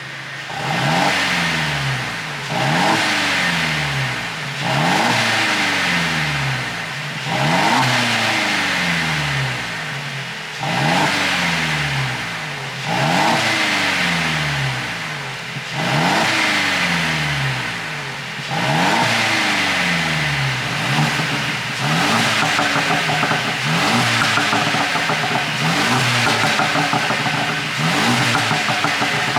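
Mercedes-Benz SLC200's turbocharged four-cylinder engine revved in repeated blips about every two seconds, each one rising sharply in pitch and falling back, with the popping of an ECU pop-and-crackle tune. About two-thirds of the way through the revs come faster and steadier, with dense crackling.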